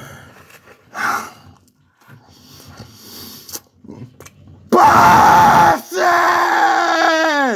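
A man yelling loudly with his mouth full of food, in two bursts: a short yell, then a longer held one whose pitch drops off at the end. Before that, faint chewing sounds.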